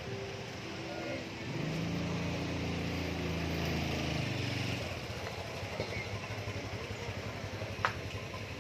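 Motorcycle engine running close by: a steady hum that grows stronger from about a second and a half in until about five seconds, then settles to a lower, even idle. A single sharp click comes near the end.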